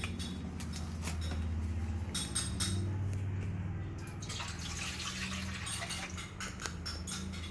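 Water being poured into a large cooking pan of liquid, with a few light clicks.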